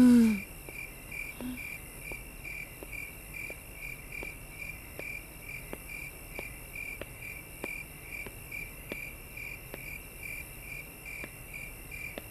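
Crickets chirping in a steady pulsing rhythm, about three pulses a second, with faint regular ticks underneath.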